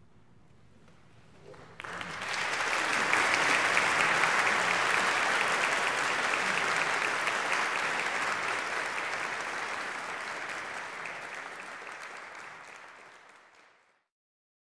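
Audience applause at the close of an a cappella choral piece. It breaks out about two seconds in after a brief hush, swells, then slowly fades and cuts off abruptly near the end.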